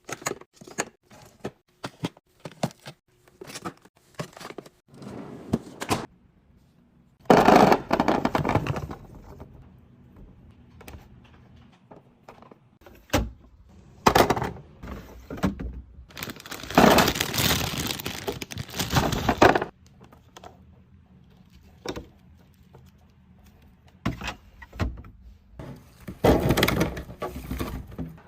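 Food containers and packaging being handled and set down on fridge shelves during a restock: a steady string of plastic clicks, taps and knocks, broken three times by a few seconds of louder rustling noise.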